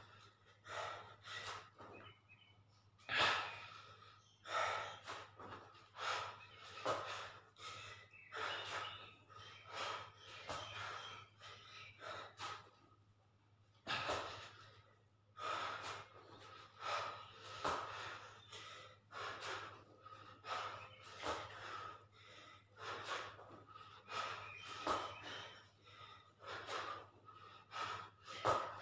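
A man's heavy breathing from exertion during push-ups, a forceful puff of breath roughly once a second, over a faint steady hum.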